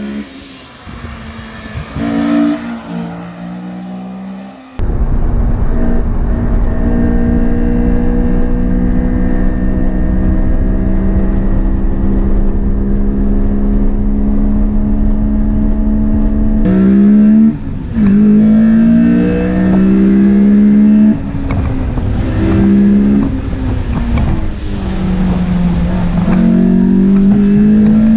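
Honda S2000's F20C 2-litre naturally aspirated four-cylinder VTEC engine run hard. A quieter stretch gives way to a sudden, much louder sound about five seconds in, with a long steady high-rev pull. In the second half the engine note drops sharply and climbs again several times, as with revving and gear changes.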